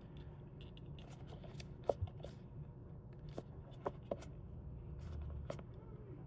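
Scattered light clicks and rubbing of plastic and rubber parts as the old blower motor of a ResMed AirSense 10 CPAP machine is worked loose from its housing by hand.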